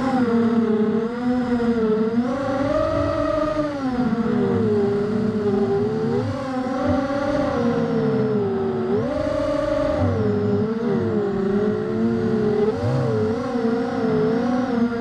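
Four T-Motor 1806 2300 kV brushless motors spinning 5-inch props on a 250-size FPV racing quadcopter, whining continuously with the pitch rising and falling as the throttle changes through turns, with a few sharp swoops up about two, six and nine seconds in.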